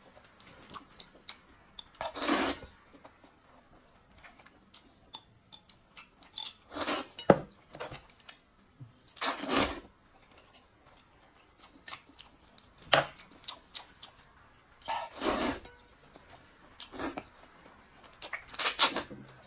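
Person slurping hand-rolled noodles in soup, about five loud half-second slurps spaced several seconds apart, with faint chewing and small clicks between them.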